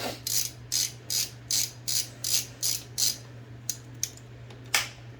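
Hand ratchet tool being worked back and forth in about ten quick, even strokes, roughly three a second, then a few single clicks as the work slows near the end.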